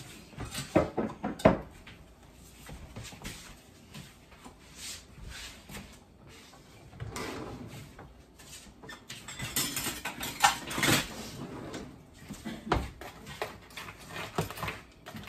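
Kitchen clatter: a few sharp knocks about a second in, then metal cooking utensils rattling as a drawer of them is rummaged through, and near the end a utensil clinking against a steel pot of soup being stirred.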